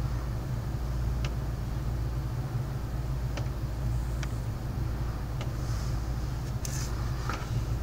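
Steady rain in a thunderstorm, with a constant low rumble underneath and a handful of sharp ticks, about six, of drops landing on a hard surface.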